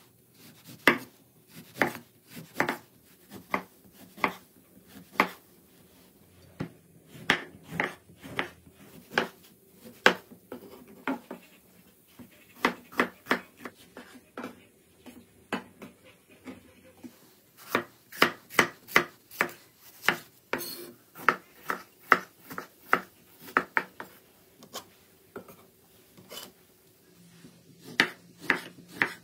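Large kitchen knife slicing through citrus fruit and produce onto a wooden cutting board: a series of sharp knocks as the blade meets the board, in runs of up to about two a second with short pauses between runs.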